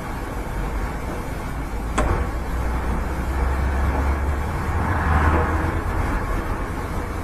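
Steady outdoor background noise with a constant low rumble, like distant traffic, picked up by a courtyard camera's microphone. A sharp click sounds about two seconds in, and the noise swells briefly around five seconds in.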